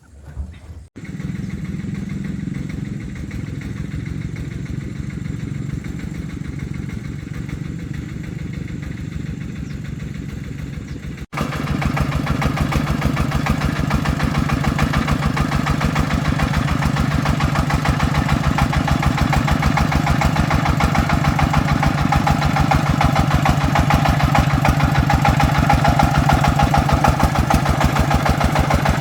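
Single-cylinder diesel engine of an agricultural log truck coming in about a second in and running with a fast, even pulse. After an abrupt break about a third of the way through, it runs louder and brighter.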